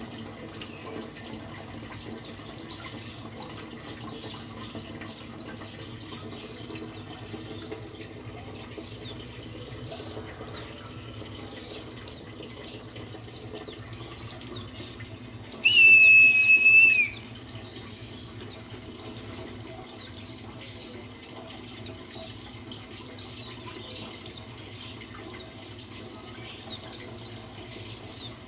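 Pleci buxtoni white-eye singing: quick bursts of high, twittering chirps every second or two, with one steady whistled note held for about a second and a half midway.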